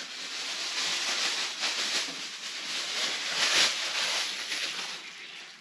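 Thin plastic bag crinkling and rustling as it is handled, easing off near the end.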